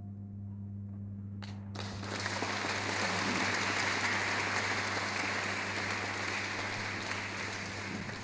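A couple of lone claps about a second and a half in, then an audience breaks into full, steady applause.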